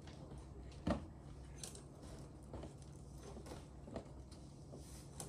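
Faint rustling and light clicks of clothes and objects being handled, with one sharper knock about a second in, over a steady low hum.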